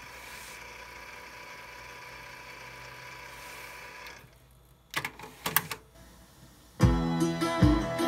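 Kenwood KX-77CW cassette deck's transport running, a steady whirring hiss for about four seconds as the tape winds. It then stops, and a few sharp mechanical clicks come as the buttons and transport engage. Music from the tape starts playing again near the end.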